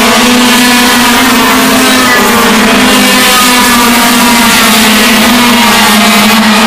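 A pack of Yamaha two-stroke kart engines racing, several engines at different pitches overlapping in a loud, steady drone that slowly rises and falls as they work through a corner.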